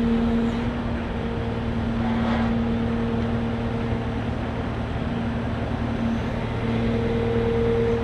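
XCMG XC7-SV12 skid steer loader running while its loader arms raise and lower the bucket: a steady engine rumble with a sustained humming tone.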